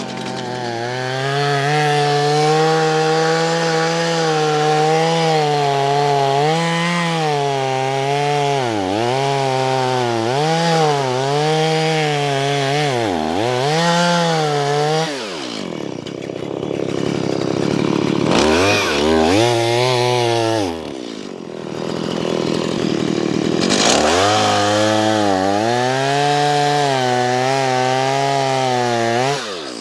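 Two-stroke chainsaw cutting into a standing tree to fell it, run at high revs with the pitch dipping again and again as the chain loads up in the cut. About halfway through it drops back briefly, then revs up and cuts on steadily.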